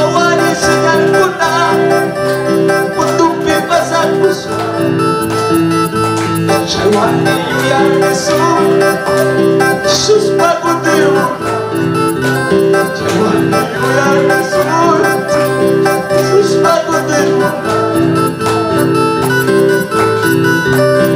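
A man singing a Quechua praise song into a microphone while playing an electronic keyboard, with a steady accompaniment under the voice.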